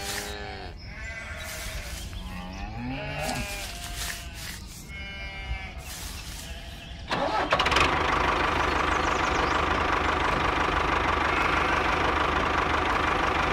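Several bleating calls from a farm animal, each a short quavering cry. About halfway through, a small motor starts abruptly and runs steadily, much louder than the bleats.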